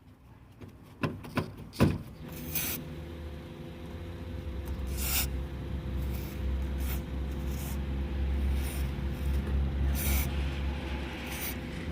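Short hisses from an aerosol can of spray grease, fired in brief squirts every second or two, over a steady low engine hum. A few sharp clicks come about a second in.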